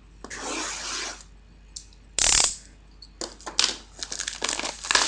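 A cardboard trading card box and its packaging being handled and opened: a soft rustle, a sharp scraping noise about two seconds in, then a string of quick taps and rustles.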